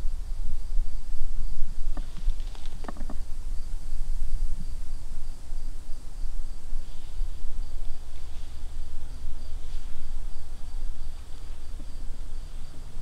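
Summer woodland ambience: insects keep up a steady, evenly pulsing high-pitched buzz over a low rumble. A few light clicks come about two to three seconds in.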